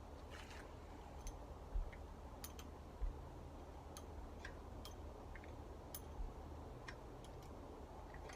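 Scattered light clicks and taps of small metal engine parts being handled and set down during an engine top-end teardown, about a dozen in all, over a faint low hum.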